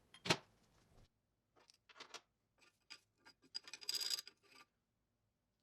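Light metallic clicks, taps and short scraping sounds of hand tools and parts being handled on an old cast-iron engine, scattered and irregular, with a busier run of clinks near the end.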